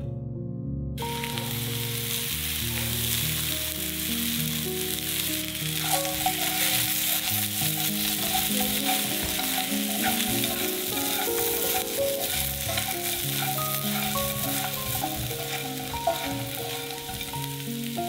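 Food frying in a hot pan, sizzling steadily with small crackles from about a second in, over soft background music.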